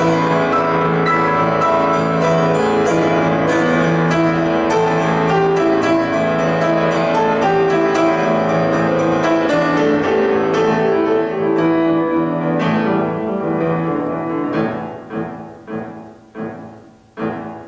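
Grand piano playing a dense passage of chords on a steady pulse, which about twelve seconds in breaks into a handful of separate chords, each left to ring and die away, the last struck near the end: the closing bars of the piece.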